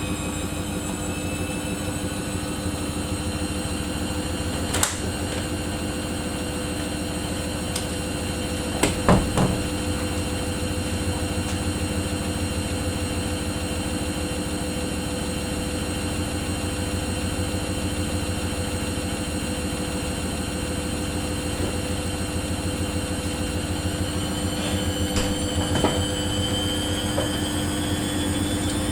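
Samsung washing machine running: its drum turning with a fast, even pulsing and a steady motor whine. There are a few sharp clicks or knocks. Near the end the whine rises in pitch as the motor speeds up.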